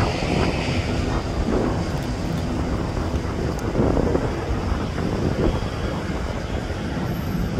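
Boeing 737-800 with twin CFM56-7B turbofans at takeoff thrust: a steady low rumble as the jet climbs away.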